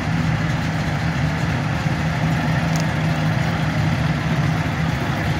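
Engines of slow-moving parade vehicles running at low speed, a steady low drone with no revving.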